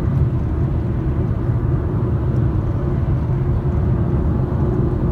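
Steady road noise heard inside a moving car: a continuous low rumble of tyres and engine while driving along a paved highway.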